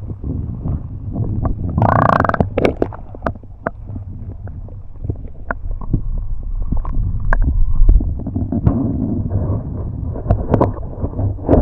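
Wind rumbling on the microphone, with scattered knocks and clunks of gear aboard a small wooden sailing boat and a louder clatter about two seconds in.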